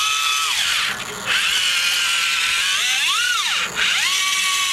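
Electric drive motors and gearboxes of a small RC rubber-tracked loader whining as it drives, the pitch rising and falling with its speed. The whine cuts out briefly about a second in and again, more briefly, near the end.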